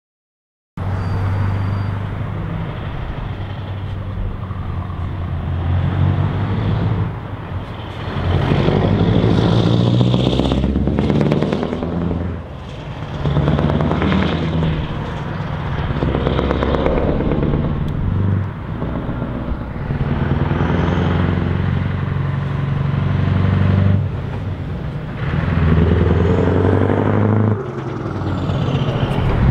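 Scania V8 truck engines running loud under acceleration, the low engine note climbing and then dipping briefly several times as the trucks change gear.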